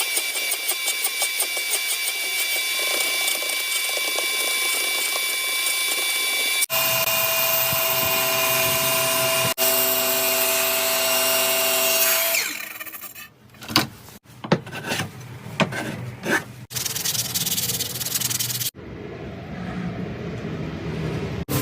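Power tools cutting wood, in a run of short clips: first a spinning cutter's steady high whine, then a stretch of separate knocks and clatter, then steady machining noise near the end.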